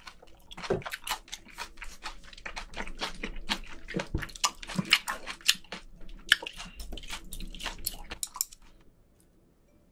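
Close-up eating sounds: a dense run of wet, crisp clicks and crunches from chewing and handling raw food. They stop about nine seconds in.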